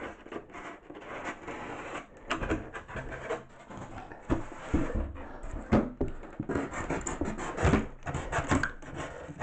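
Utility knife blade cutting and scraping along the edge of an extruded polystyrene foam board (Styrodur), in irregular scraping strokes with short knocks, busier in the second half.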